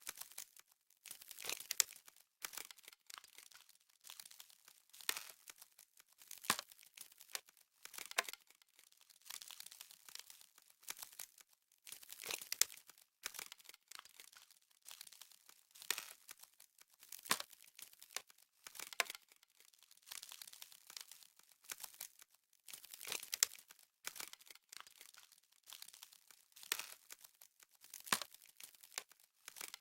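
Crisp crunching and crackling of frost, in short bursts that repeat irregularly about every second and a half.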